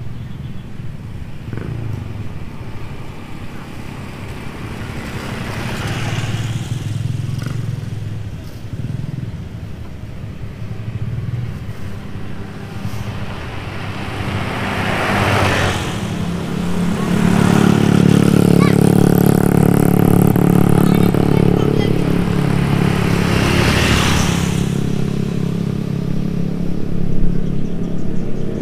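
Heavy trucks driving past on a highway: several pass-bys with tyre and wind noise. About halfway through, a loud steady engine drone from a coal-laden dump truck builds and holds for roughly ten seconds before easing off.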